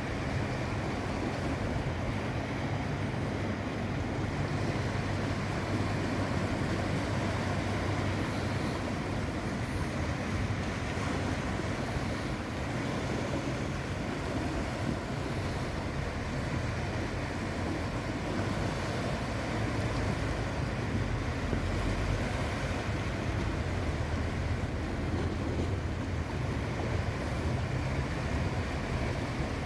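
Sea surf washing onto the shore, a steady rushing noise that swells and eases gently, with wind rumbling on the microphone.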